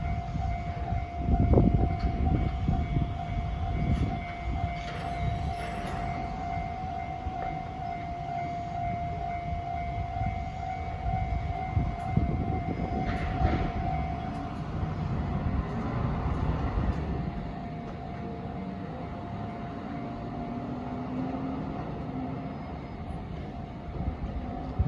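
Japanese level crossing alarm of the 'Tohoku tone' type ringing steadily, fainter after about 14 seconds, while a Joshin Electric Railway train rumbles over the rails with occasional wheel knocks.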